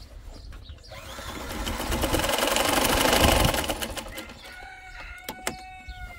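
A household sewing machine, driven by a small electric motor, runs a fast seam; it speeds up over a couple of seconds and stops about four seconds in. Then a rooster crows with one long held call, with a couple of sharp clicks under it.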